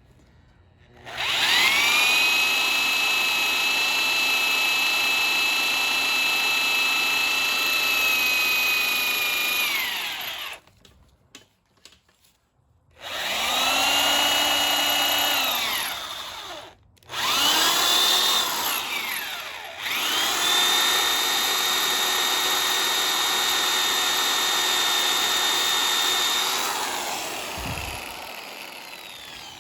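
Hand drill with a small cobalt bit drilling into the head of a rounded-out engine bolt, run in four bursts with short pauses. The motor whine rises as the drill spins up and falls as it stops; the last burst tails off slowly.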